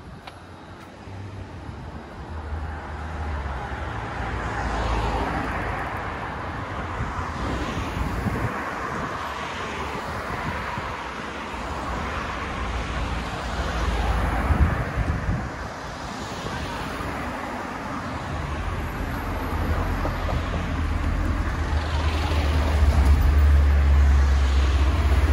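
Road traffic: cars passing one after another, each swelling and fading, over a low rumble that grows louder near the end.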